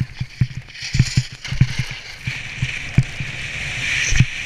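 Skis running at speed over chopped snow, heard through a helmet camera: irregular low thumps of wind buffeting the microphone over a hiss of skis on snow that grows louder near the end.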